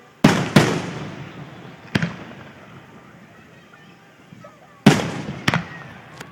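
Aerial fireworks shells bursting: a quick pair of loud bangs near the start, another about two seconds in, and a few more near the end, each followed by a rolling echo.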